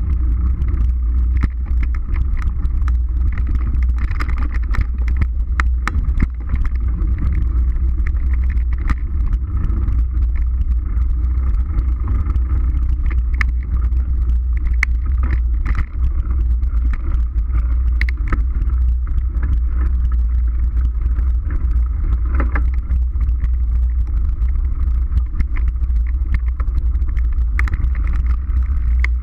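Mountain bike ridden along a dirt forest trail: steady, loud wind and rolling rumble on the bike-mounted camera's microphone, with scattered clicks and rattles from bumps in the trail.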